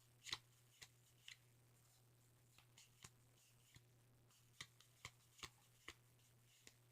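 Faint light clicks and flicks of Yu-Gi-Oh trading cards being handled, about a dozen scattered taps with the loudest about a third of a second in, over a steady low hum.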